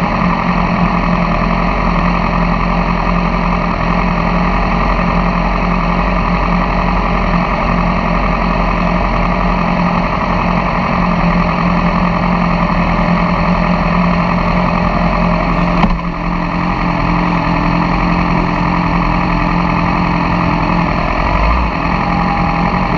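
Sport motorcycle engines idling together in a stopped pack, a loud steady engine drone, with a single click about two-thirds of the way through.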